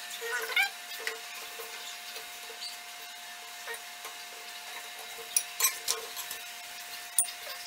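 A spoon clinking against a bowl of melted butter and rubbing oil over a roti on an iron tawa, then a hand patting the roti. There are light clicks and taps, a few sharper ones about five and a half and seven seconds in, over a steady faint hiss.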